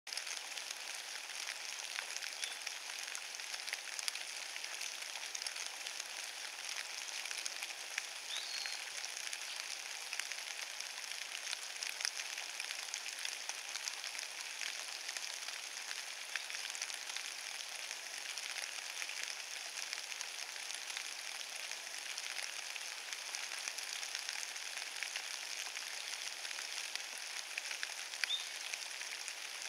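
Steady rain pattering on a carpet of wet fallen leaves, a dense hiss of fine drop ticks. A few brief high chirps stand out over it three times.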